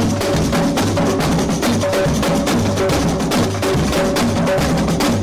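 A carnival batería, a large percussion troupe, playing a fast, dense drum rhythm: quick strokes over a repeating deep bass-drum pulse.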